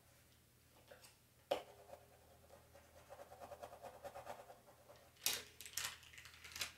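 Plastic scraper rubbing transfer tape down over thin vinyl letters on a chalkboard, burnishing them so they stick: a faint, wavering squeaky rubbing after a sharp tap about a second and a half in. A few sharp crackles of the plastic transfer tape follow near the end.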